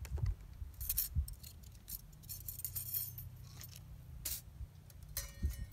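Hinged steel panels of a folding Firebox stove clicking and clinking as it is unfolded: several separate metallic clicks, with a short ringing clink near the end.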